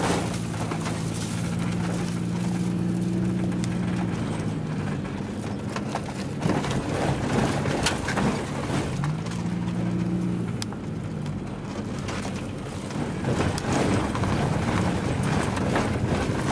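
Car engine running and tyre noise heard from inside the cabin on a rough, badly damaged road, with scattered knocks and rattles from the bumps. The engine note shifts up and down as the car speeds and slows, rising about nine seconds in.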